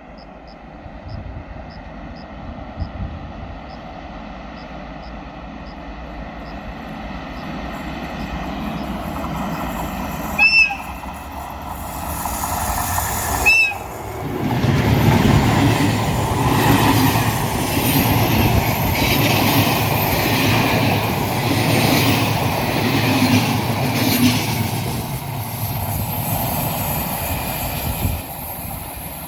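Moroccan ONCF passenger train hauled by electric locomotive E 1262 approaching and passing close by. Its rumble grows louder, two short horn toots sound about ten and thirteen seconds in, then the train goes past with a loud, rhythmic clatter of wheels over the rails that eases off near the end.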